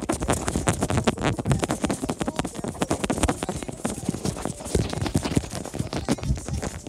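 Handling noise from a phone being shaken about: rapid, irregular knocks and rubbing on the microphone.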